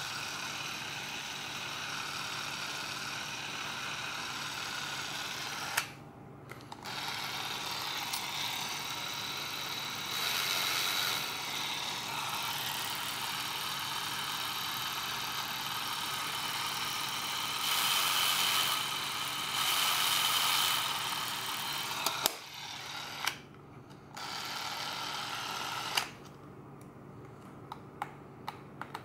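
The motor of a Chinon 1072 S Deluxe Super 8 movie camera running with a steady whir. It cuts off with a click twice, about six seconds in and again just past twenty seconds, each time starting again a second or so later. A louder, higher whine joins in three times, and the motor stops with a click about three seconds before the end, leaving only a few small clicks.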